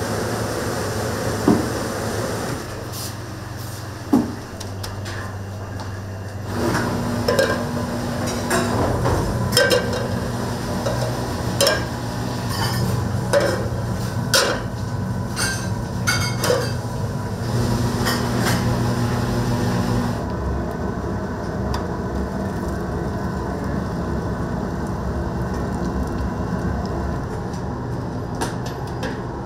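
Kitchen sounds: scattered clinks of utensils and dishes over a steady low hum. The clinks come thick for a while and thin out in the last third.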